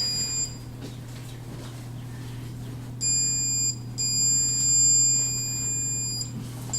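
Electronic stud finder beeping as it slides across drywall, sounding each time it detects a stud behind the wall. There is a short beep at the start, a beep of under a second about three seconds in, then one held for about two seconds. A steady low hum runs underneath.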